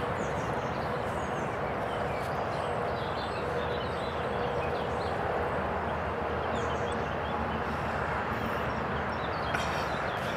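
Steady road traffic noise, a constant wash with no single vehicle standing out.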